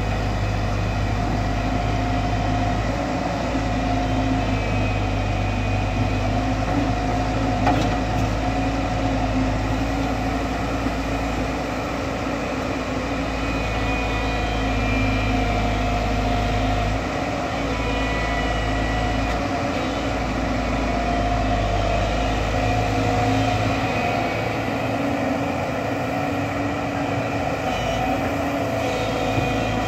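JCB tracked excavator's diesel engine running steadily under digging load, a continuous low hum with steady engine tones; the deepest part of the hum thins out about three-quarters of the way through.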